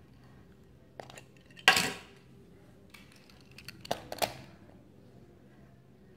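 Hot Wheels die-cast toy cars being handled and set down, giving a few sharp metallic clicks and clinks: a light one about a second in, the loudest shortly after, and a quick cluster around four seconds.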